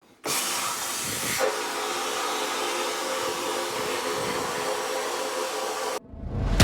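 Vapor blasting cabinet's spray gun running: a steady hiss of air and wet glass-bead slurry with a faint hum under it, which starts just after the beginning and cuts off suddenly near the end.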